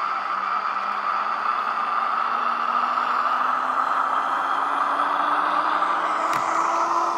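Electric-train traction-motor hum of an ÖBB 4020 from an ESU LokSound 5 sound decoder, played through the H0 model's small loudspeaker, rising steadily in pitch as the train pulls away over a steady rushing noise. A single sharp click comes about six seconds in.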